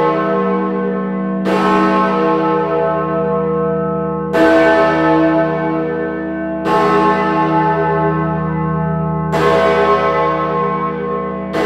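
Great George, a large swinging church bell, tolling: a single strike about every two and a half seconds, each ringing on with a deep hum and many overtones that carry under the next stroke.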